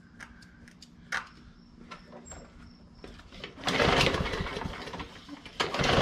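A few faint clicks, then a Briggs & Stratton E/EX-series push-mower engine pull-started twice, about two seconds apart. Each pull gives a short burst of cranking that fades without the engine catching. This is a no-start, more than likely from a carburetor clogged by gas left in over the winter.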